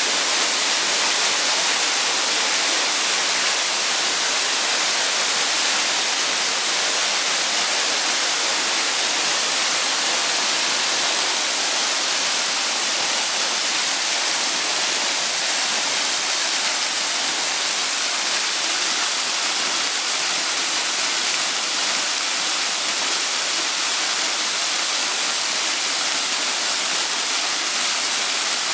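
Waterfall: falling water making a steady, unbroken hiss with little low rumble.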